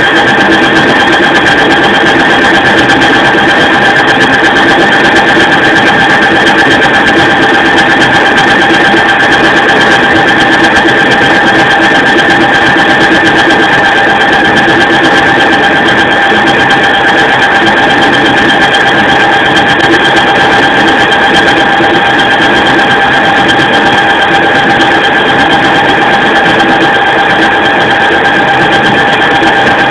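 Nardini CNC lathe running steadily while machining a shaft: a constant high whine with lower steady tones over a mechanical hiss, with no change in pitch or level.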